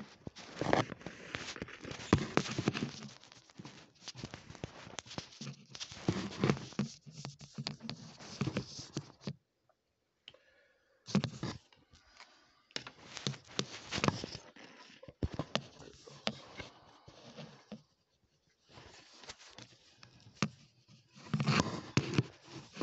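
Handling noise from a phone being moved around in the hand: irregular rubbing and rustling with many small clicks and knocks, stopping briefly twice.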